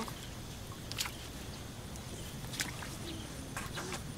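A few light clicks and taps from a woven bamboo fish trap being handled and opened by hand, over a steady low background noise.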